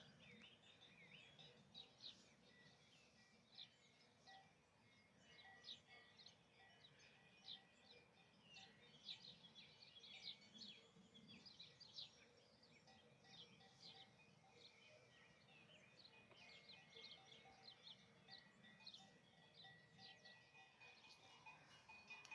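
Faint birdsong, many short chirps and tweets scattered throughout, over quiet countryside ambience.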